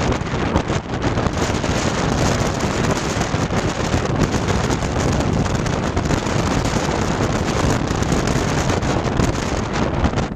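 Wind buffeting the microphone, a loud, steady, fluttering rush with a heavy low rumble, as from filming out of a moving car.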